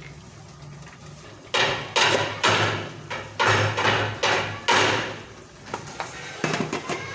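A series of sharp knocks from kitchen work, about six irregular strokes starting after a quieter first second and a half, each dying away quickly.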